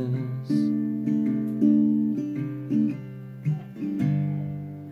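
Acoustic guitar playing the song's closing chords alone after the last sung line, with a final chord struck about four seconds in and left ringing.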